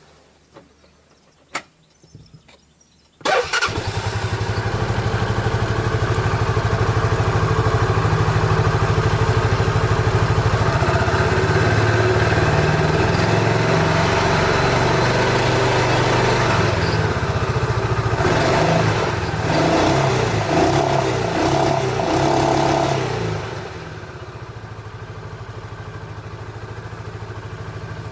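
A few clicks, then an engine starts about three seconds in and runs at idle with a steady, rhythmic running noise, including the noise of its original clutch. Near the end the noise drops noticeably in level.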